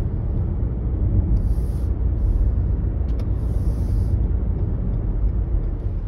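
Steady low rumble of a car driving along a road, heard from inside the car, with brief patches of hiss in the middle.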